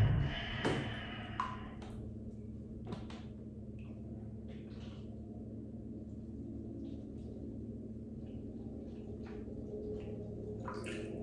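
Quiet bathroom with a steady low hum and scattered faint drips and small water sounds from a filled bathtub.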